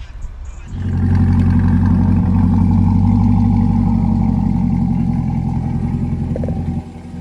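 C8 Corvette V8 running loud through a freshly installed aftermarket exhaust. It comes in suddenly about a second in and holds a steady deep note, with a brief dip near the end.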